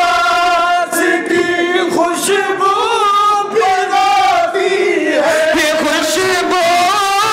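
A group of men singing a manqabat together in chorus into a microphone, with long held notes that waver in pitch.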